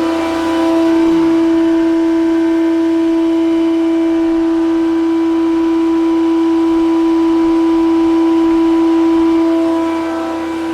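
Invicta RC63 24-inch planer running, its 7.5-horsepower main motor and four-knife cutterhead spinning with a loud, steady, even-pitched whine. The sound eases off slightly near the end.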